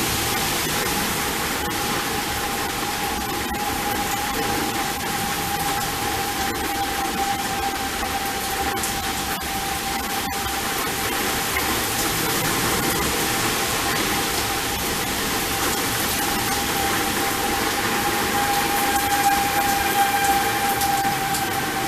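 Federal Signal 2001-SRNB outdoor warning siren sounding a steady single tone for a tornado warning, swelling louder near the end as it rotates. A constant rushing hiss of the storm lies under it.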